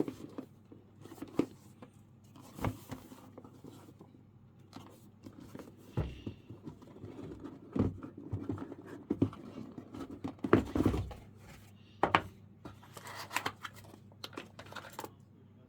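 Packaging being handled and opened: irregular crinkling, rustling and tearing, with scattered knocks and taps.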